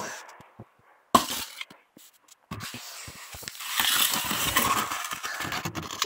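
Thin disposable plastic cups being handled: a sharp knock about a second in, then a few seconds of crackling plastic with many small clicks.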